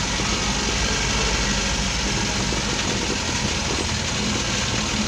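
A vehicle engine running steadily, with a low hum and road or cab noise and no sharp events.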